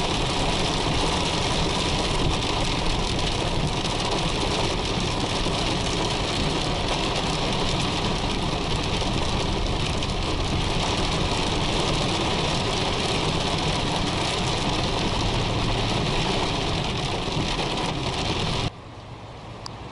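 Heavy rain drumming on a pickup truck's roof and windshield, heard from inside the cab; it drops off suddenly near the end.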